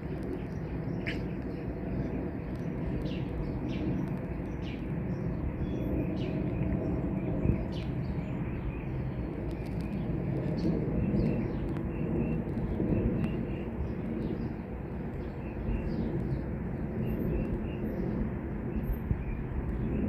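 Steady low rumble of a four-engine jet airliner passing high overhead, with small birds chirping in short high notes throughout.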